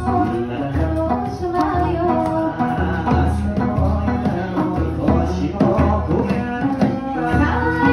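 Live Okinawan folk song: singing accompanied by a sanshin and a drum beaten about once a second.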